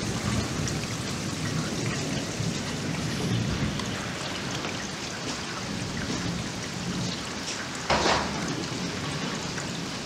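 Wind rushing over the microphone in a steady low rush, with a brief louder gust about eight seconds in. This wind noise covers the waterspout's own rumbling, whistling sound.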